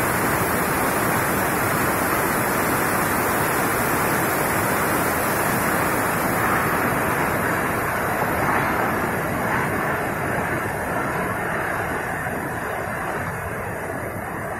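Water jetting from a hose onto a wet floor: a steady rushing hiss that eases off slightly near the end.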